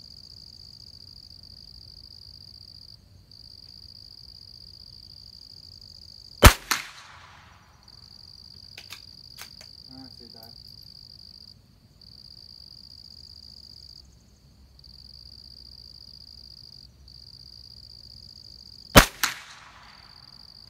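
Two shots from a Christensen Arms Ranger bolt-action .22 LR rifle, about twelve seconds apart. Each is a sharp crack followed a moment later by a quieter second crack. Between the shots come a few light metallic clicks of the bolt being worked, over a steady high insect buzz that stops briefly every few seconds.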